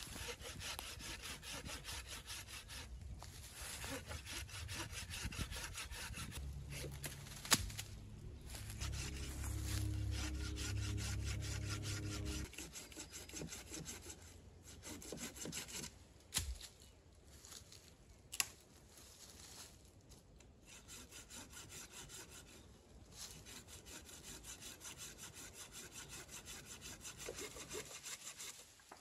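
Hand saw cutting firewood, with steady back-and-forth strokes through the wood and a few sharp knocks. A low hum joins in for several seconds about a quarter of the way through.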